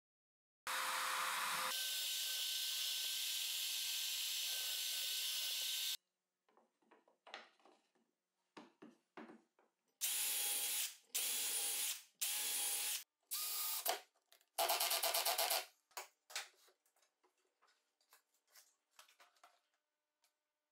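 Power drill boring small holes in plywood: one steady run of about five seconds, then five short bursts, with light clicks and knocks of handling in between.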